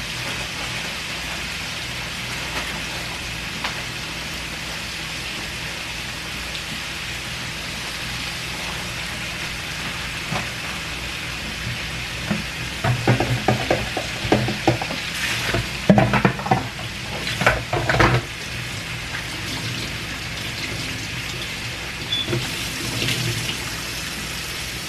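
Chicken pieces frying and sizzling steadily in hot oil. About halfway through, a run of loud knocks and clatter sits over it for a few seconds, with a few lighter knocks near the end.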